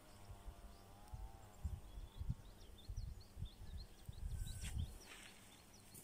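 Quiet garden ambience: a small bird twittering in quick short chirps in the background through the middle of the stretch, over low rumbles of wind or handling on the microphone. A faint wavering pitched sound is heard at the start.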